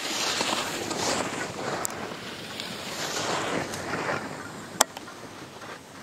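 Skis scraping and swishing over hard-packed snow, the hiss swelling and fading in waves about once a second, with one sharp click a little before the five-second mark.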